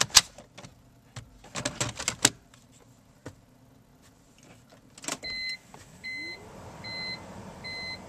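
Clicks and ticks from the heater control system's air-flap stepper motors running their self-check, just after the M-bus connector is plugged back in. About five seconds in, a click is followed by a series of short electronic beeps, about one every 0.7 s, and a motor spinning up underneath.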